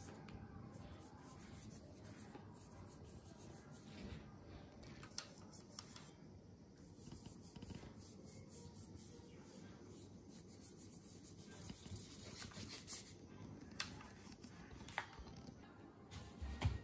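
Faint paintbrush strokes rubbing on paper, with a few light clicks and a single thump near the end.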